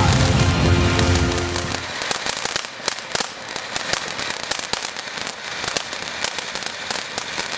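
Music plays, then stops about two seconds in, leaving a dense, continuous run of firework crackles and pops.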